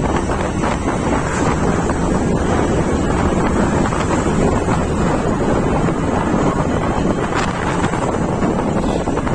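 Steady, loud wind rush buffeting a phone microphone on a moving scooter, with the Suzuki scooter's engine humming faintly and steadily beneath it.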